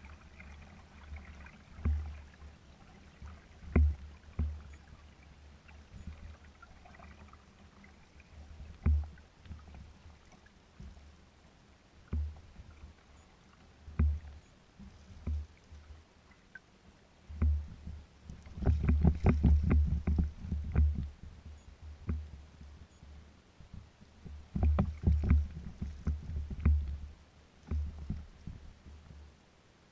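Small waves slapping against a kayak's hull: irregular low thumps with a short knock in each, every couple of seconds, coming in quick clusters about two-thirds of the way through and again near the end.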